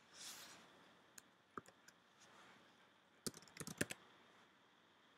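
Faint computer keyboard typing and clicking: a few separate key or mouse clicks, then a quick run of key taps a little past the middle, as a web address is typed into a browser.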